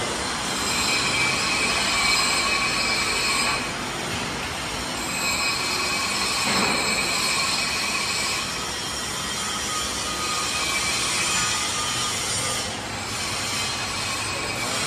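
High-pitched squeal of factory machinery: several shrill tones sound together in stretches of about three seconds, with short breaks between, over a steady workshop din.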